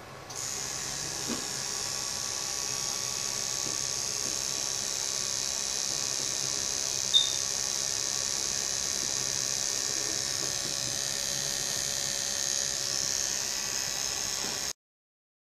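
Coil tattoo machine buzzing steadily as it tattoos permanent eyeliner along the eyelid. A single sharp click comes about seven seconds in, and the sound cuts off suddenly near the end.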